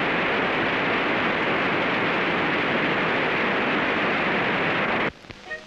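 Steady loud hiss of an early optical film soundtrack, cutting off abruptly about five seconds in, followed by a few faint musical notes.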